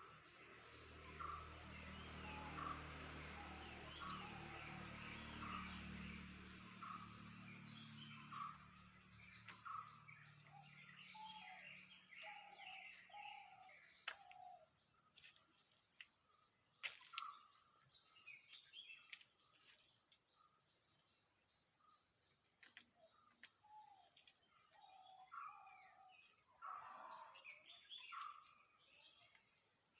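Faint birds chirping in short repeated calls. A low engine-like hum fades out in the first ten seconds or so, and there are a few sharp clicks.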